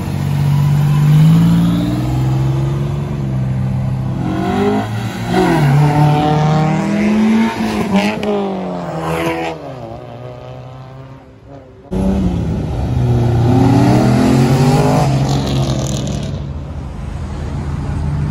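Several cars accelerating away one after another, engines revving up and easing off as each pulls past, with a sudden jump in loudness about twelve seconds in. A Buick Grand National pulls away first.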